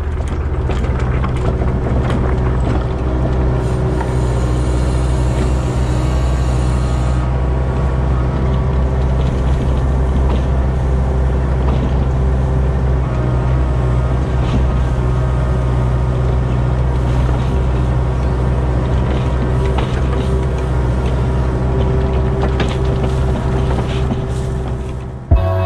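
Diesel engine of a construction machine running steadily with a deep hum. It starts abruptly and cuts off abruptly near the end.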